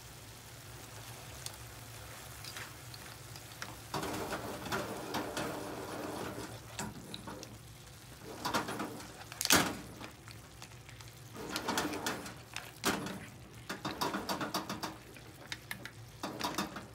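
Spaghetti and clams being tossed with tongs in a frying pan of bubbling sauce: wet stirring and sloshing, with clam shells and the tongs clacking against the pan. The tossing starts about four seconds in, and the loudest clack comes about nine and a half seconds in.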